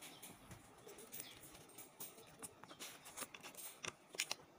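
Small plastic LEGO pieces clicking and tapping as they are handled and pressed onto the studs of a baseplate: faint, irregular clicks, the sharpest near the end.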